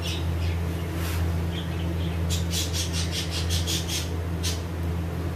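Kitchen sounds while a potato paratha cooks on an iron tawa: a steady low hum, and about two seconds in a quick run of about eight short, high chirping clicks lasting under two seconds.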